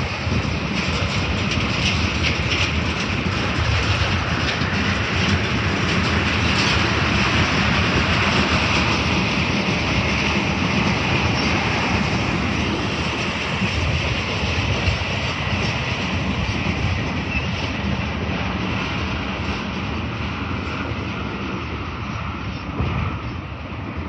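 Freight train's empty double-stack well cars and tank cars rolling past on the rails, a steady rushing noise with some clicks from the wheels. The sound drops off near the end as the train moves away.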